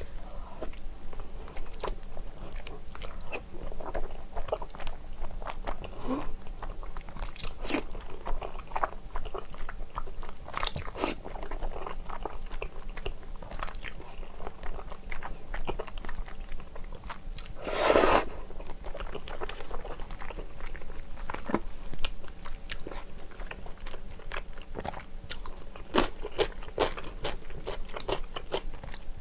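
Close-miked eating sounds of spicy tteokbokki: slurping flat glass noodles, chewing chewy rice cakes and sausage, and wooden chopsticks clicking against the glass bowl. One louder, longer slurp about eighteen seconds in.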